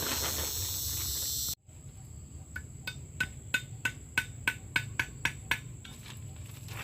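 A steady hiss cuts off suddenly, then a quick run of about a dozen sharp knocks, roughly three a second, like something being struck repeatedly.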